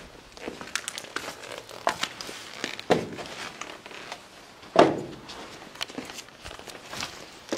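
Footsteps on a debris-strewn floor: irregular clicks and scuffs, with two louder knocks about three and five seconds in.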